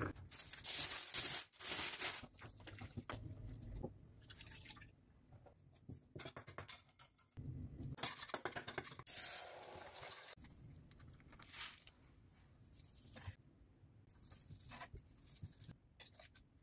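Wet kitchen handling sounds, in irregular bursts: broth dripping and sloshing as boiled vegetables are worked with a spoon in a metal mesh strainer, and later a knife slicing through boiled pork neck with small taps on a wooden board.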